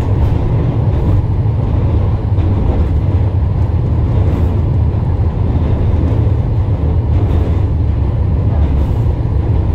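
Tram riding along the track, heard from inside the car: a loud, steady low rumble of the running tram.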